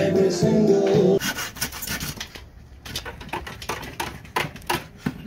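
Music that cuts off about a second in, then a handsaw cutting a wooden board in short, uneven strokes.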